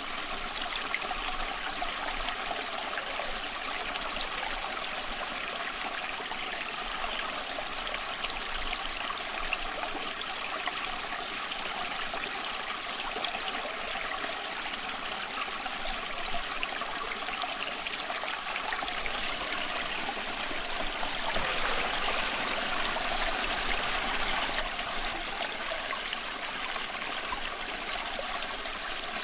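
Small stream of water flowing and trickling steadily, with a slightly louder, fuller rush of water about two-thirds of the way through.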